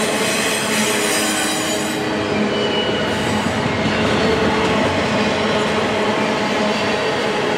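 Double-stack intermodal freight train rolling past: a steady rumble of steel wheels on rail, with thin, high wheel squeals coming and going.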